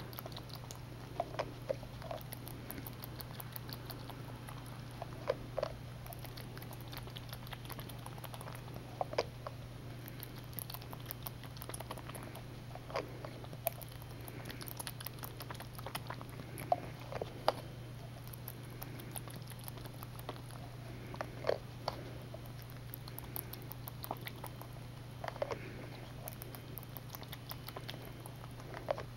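A young jackrabbit suckling milk from a bottle's feeding tube: quick irregular wet clicks and smacks of its mouth on the tip, over a steady low hum.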